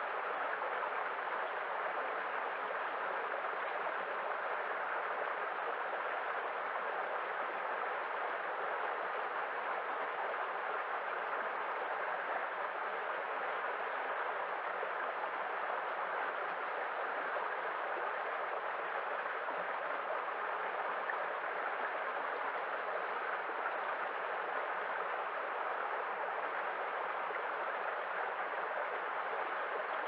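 Small rocky brook running over a low cascade of stones: a steady, unbroken rush of water.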